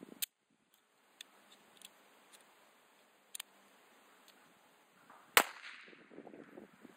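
A single shot from a 9mm Glock 17 pistol about five seconds in, fired with the magazine removed to test whether the magazine was locking the slide. Before it come a sharp click near the start and a few light metallic clicks of the pistol being handled.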